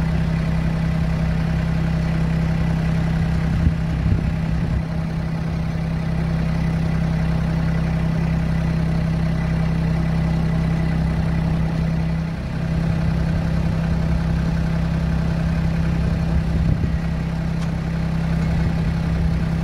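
A compact farm tractor's engine idling steadily, with a couple of brief knocks about four seconds in and again near the end.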